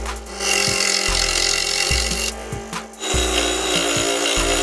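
Electric scroll saw cutting through a wooden block, a dense rasping hiss that breaks off briefly at the start and again around the middle as the piece is turned. Background music with a steady beat plays underneath.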